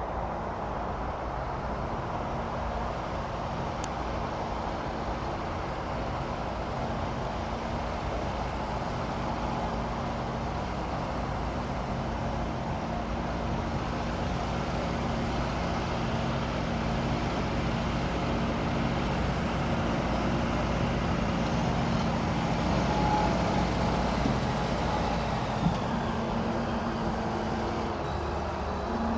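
Boeing 787-9's Rolls-Royce Trent 1000 turbofan engines running at low taxi power as the airliner taxis. It is a steady low hum with a few held tones, growing slowly louder.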